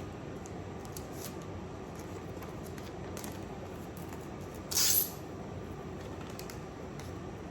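Plastic record sleeve rustling, with a few faint ticks and one louder swish of plastic about five seconds in, as a vinyl album jacket is worked into a glossy protective outer sleeve.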